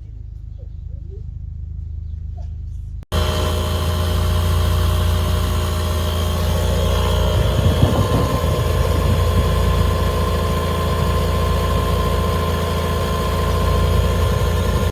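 Small 12V air compressor built into a jump starter, running steadily with a buzzing mechanical drone. It starts as a lower hum, then after about three seconds it jumps suddenly to a much louder, steady running and cuts off sharply at the end.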